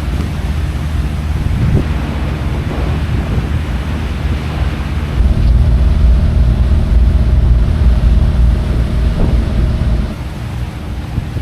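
A low engine drone with steady hum tones, louder from about halfway through, under wind buffeting the microphone.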